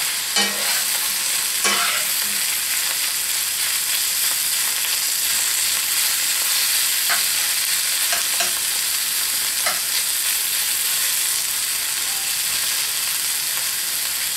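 Sausage and apple stuffing sizzling steadily in a cast iron skillet, stirred with a spoon that scrapes and clicks against the pan a few times.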